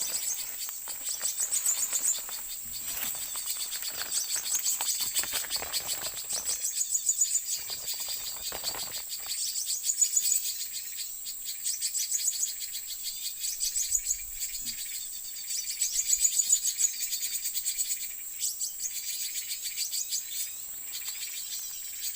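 Forest insects keep up a steady high-pitched trill, over which small birds give bursts of rapid, high twittering chirps every couple of seconds.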